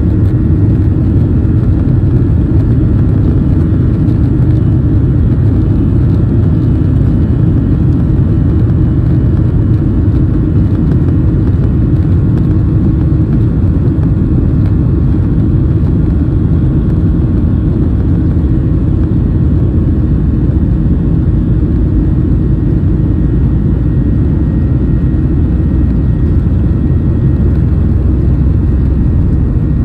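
Steady low rumble inside the cabin of a Boeing 737 as it moves: engine noise and the aircraft's own rumble, with a faint steady hum.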